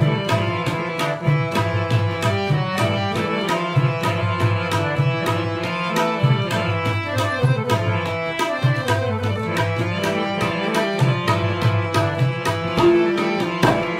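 Harmonium playing a melody in sustained reedy tones over tabla keeping a quick, even rhythm. This is an instrumental passage with no singing, between sung lines of a Pashto song.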